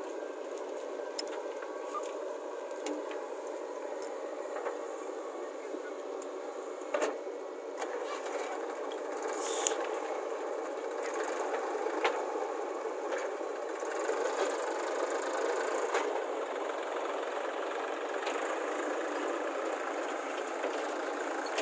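Diesel engines of a JCB 3DX backhoe loader and a Massey Ferguson tractor running steadily, with a few sharp knocks and clatters from the digging and loading, a little louder after the first third.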